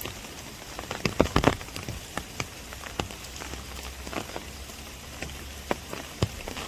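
Rain falling in a bamboo grove: a steady hiss of rain with scattered heavier drops tapping sharply on an umbrella, a cluster of the loudest taps about a second and a half in and more near the end.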